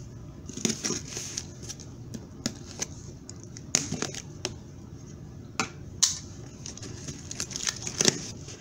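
Packing tape on a cardboard box being slit along the seam with a small pointed blade, then the flaps pulled open: scattered scrapes, rips and cardboard knocks, the sharpest a little before 4 s, at about 6 s and near the end.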